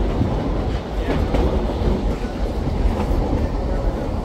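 Narrow-gauge passenger train running, heard from an open car: a steady rumble of wheels on track, with the clickety-clack of wheels over rail joints a few times.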